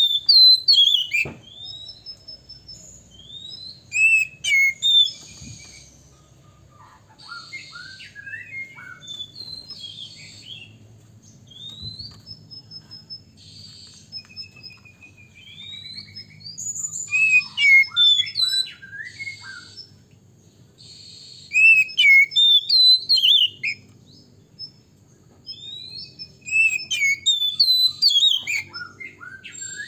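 Male Oriental magpie-robin singing a rich, varied song of rising and falling whistles mixed with harsh chattering notes. It comes in loud phrases every few seconds, with quieter warbling between them.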